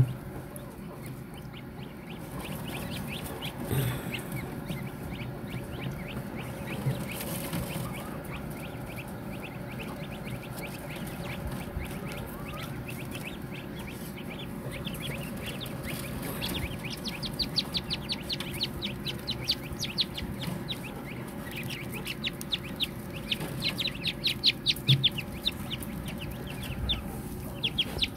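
Newly hatched chukar partridge chicks cheeping together: many short, high-pitched peeps in quick succession, growing louder and busier about two-thirds of the way through.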